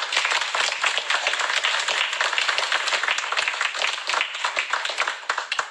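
Audience applauding: many hands clapping steadily, stopping just before the end.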